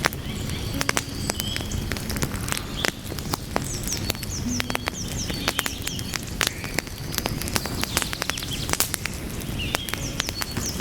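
Wood fire burning: a steady low rumble of flames with frequent sharp crackles and pops from the burning logs. Short runs of quick high chirps come in a few times.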